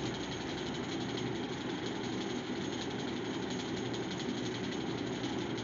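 Electric fan running with a steady, even noise, close to the phone's microphone.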